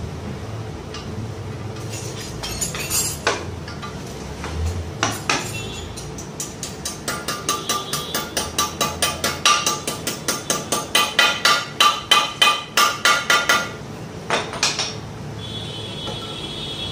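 Main bearing being hammered into the crankcase half of an old Royal Enfield Bullet engine: a few scattered knocks, then a quick run of ringing metal-on-metal hammer taps, about four a second, lasting some six seconds in the middle.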